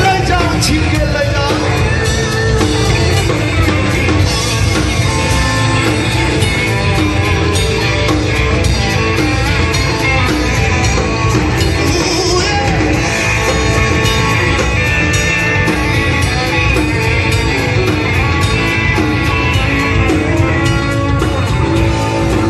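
A live rock band playing loud: electric guitars and bass with a singer, amplified through the stage sound system.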